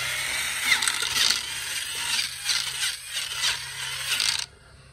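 Drill spinning a wire wheel brush against painted wooden balusters, the wire bristles scratching off old flaking paint, surging unevenly as the wheel is pressed and moved along the wood. It stops about four and a half seconds in.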